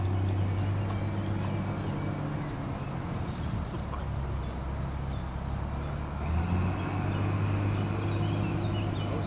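A machine's engine running steadily, its pitch stepping up about six seconds in, with birds chirping faintly over it.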